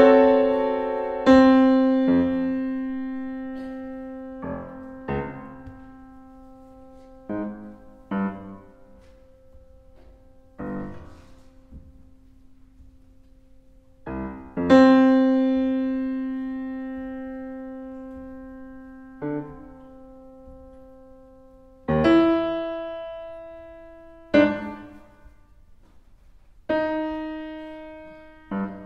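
Yamaha CFX concert grand piano playing a slow, sparse passage. Chords are struck and left to ring down for many seconds, with quieter single notes between, recorded through an Earthworks QTC30 microphone.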